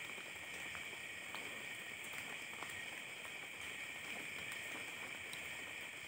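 Night insect chorus: a steady high-pitched shrill drone, with a few faint ticks.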